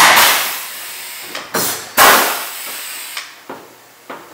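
A pneumatic rivet gun setting two stainless steel pop rivets about two seconds apart. Each is a sharp snap as the mandrel breaks, followed by a hissing rush of air that fades over about a second. A few lighter clicks and knocks come in between.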